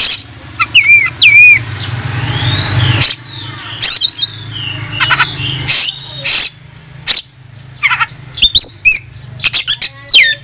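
Oriental magpie-robin (kacer) singing a loud, varied song of sharp whistled notes, quick rising and falling glides and harsh notes, in short phrases with brief pauses. It is a male's challenging song, meant to call out a rival.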